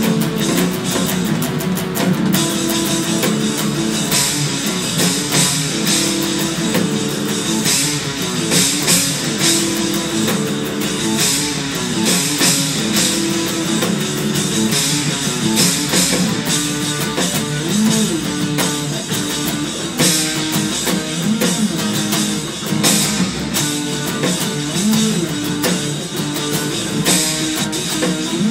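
Stratocaster-style electric guitar playing fast, busy picked lines along with a recording of the original progressive-metal track, with drum kit and cymbals.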